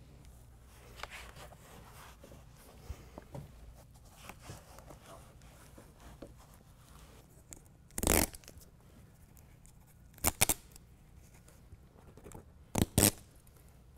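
Backing liner being peeled off adhesive strips on a molded carpet bed liner's edge pieces. Quiet rustling handling comes first, then a ripping sound about eight seconds in, and two pairs of short quick rips near the end.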